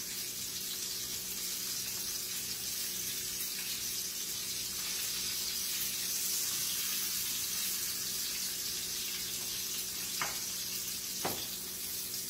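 Salmon fillets sizzling steadily in grapeseed oil in a hot pan as they sear, with two light clicks near the end.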